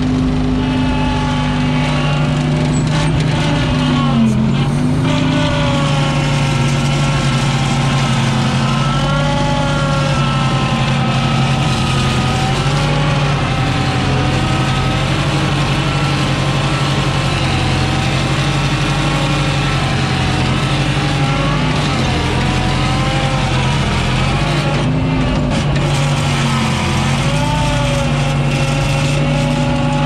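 New Holland L775 skid steer's Wisconsin gas engine running hard under throttle, heard from the operator's seat, with a whine over it as the loader works. Its pitch sags briefly twice as it takes load.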